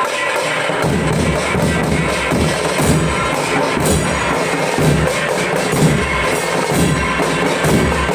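Dhol drums played together in a loud, dense, continuous beat; the deep hits grow stronger about a second in.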